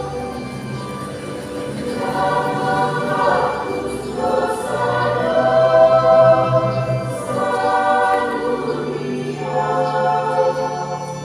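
Church choir singing a hymn in several voices, in phrases that swell and ease, loudest about halfway through.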